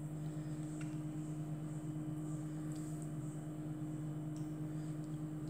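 A steady low electrical hum, with a few faint soft ticks.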